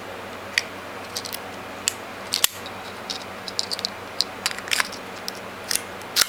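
Irregular small metallic clicks and scrapes from a 5-pin AH vending machine lock cylinder and picking tools being handled in the fingers, loudest near the end.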